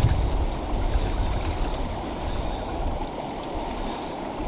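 River current running fast over riffles, a steady watery rush. A deeper rumble under it eases off about halfway through.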